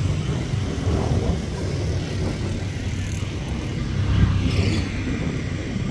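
Steady low rumble of a motor vehicle engine, with a brief falling whoosh a little after four seconds in.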